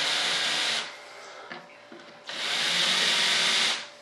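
Electric hand drill running as it bores shallow alignment holes into a composite mold, in two runs: the first stops about a second in, and a second run of about a second and a half comes near the end.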